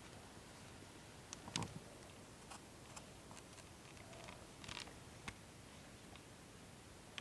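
Quiet room tone with faint, scattered small clicks and taps, the sharpest about a second and a half in.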